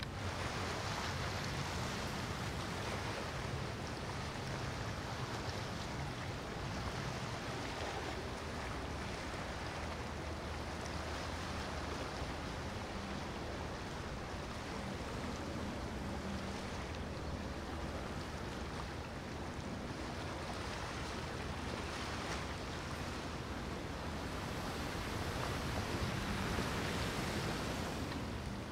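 Wind and choppy water, with the low steady drone of passing motor yachts' engines underneath; a little louder near the end.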